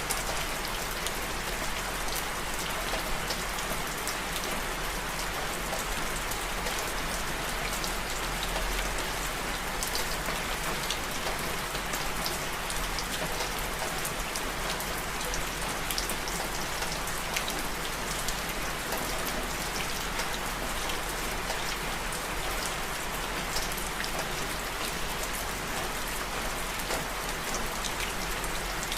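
Steady rain falling and pattering on a surface, an even hiss sprinkled with the ticks of individual drops.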